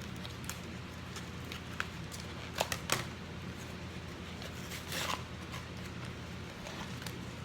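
A card package being handled and opened by hand: a few sharp crinkles and clicks, with a short rustle about five seconds in, over a steady low hum.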